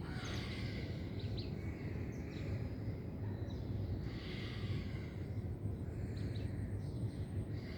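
Steady low background hum, with a few faint bird chirps now and then.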